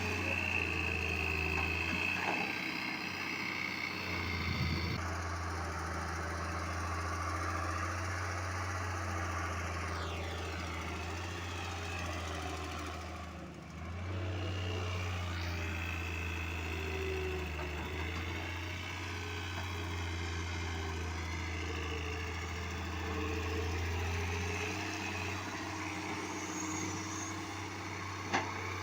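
Diesel engine of heavy earthmoving machinery running steadily with a low hum, dipping briefly about halfway through. A single sharp knock comes near the end.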